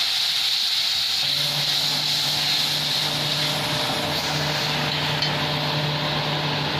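Ground spices sizzling in hot mustard oil after a splash of water, with a flat metal spatula stirring them around a wide aluminium kadai; the sizzle eases a little toward the end. From about a second in, a steady low hum runs underneath.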